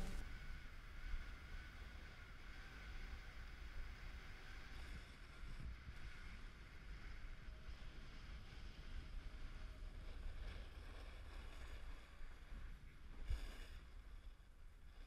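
Faint snowboard riding on packed snow: a steady low rumble and light hiss of the board sliding and carving, with wind on the microphone, and a sharper knock or scrape about 13 seconds in.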